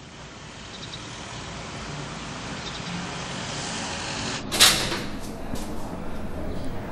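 Steady traffic-like street noise that slowly grows louder, then a sharp clunk from a building's glass entrance door about four and a half seconds in, followed by a few fainter clicks over the street noise.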